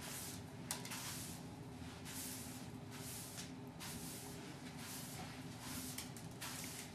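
Push broom sweeping a floor: repeated faint swishing strokes, about one every half second to a second.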